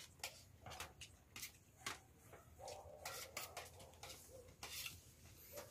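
Faint, scattered clinks and taps of spoons and forks on plates as people eat.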